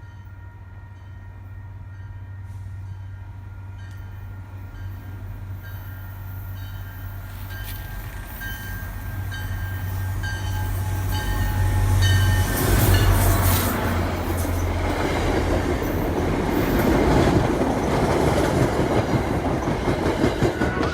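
Diesel commuter train approaching and passing, its engine drone growing steadily louder, with a repeated ringing about twice a second. From about twelve seconds in, loud rushing wheel-and-rail noise as the train goes by.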